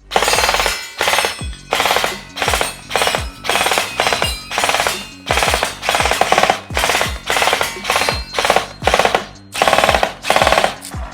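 MK18 gel blaster firing gel balls in short full-auto bursts, about two bursts a second, each a quick rattle of shots, with music underneath.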